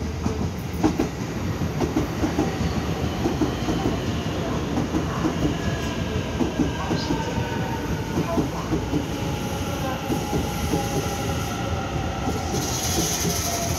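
Taiwan Railway EMU900-series electric multiple unit running past at close range as it pulls into the station. Its wheels clatter over the rail joints, and a faint whine from the drive falls slowly in pitch as the train slows. A brief hiss comes near the end.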